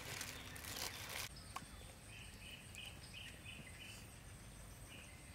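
Faint outdoor background: a soft rustling hiss for about the first second, then quiet with a run of short, high chirps repeating several times, over a thin, steady high whine.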